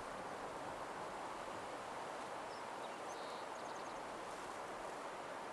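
Faint, steady outdoor nature ambience, a soft even hiss, with a few faint, high, short bird chirps a little past the middle.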